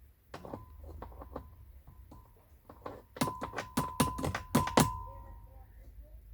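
Steel being struck metal on metal: a run of light knocks, then a quicker cluster of louder strikes about three seconds in, each leaving a clear ringing tone that fades out shortly after the last strike.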